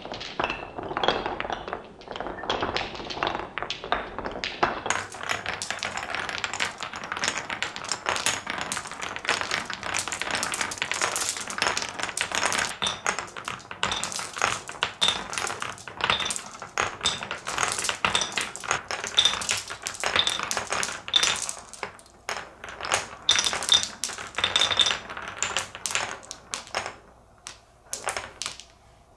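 Glass marbles rolling through wooden Cuboro marble-run blocks and clattering into a pile of other glass marbles: a dense, continuous clicking of glass on wood and glass on glass, with bright ringing clicks, thinning out near the end.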